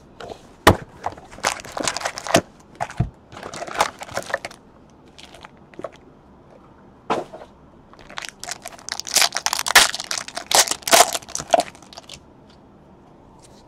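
Cardboard card box being opened and foil trading-card packs handled and torn open: scraping and rustling of cardboard, with a sharp tap about a second in, then a long run of crinkling and tearing wrappers near the end.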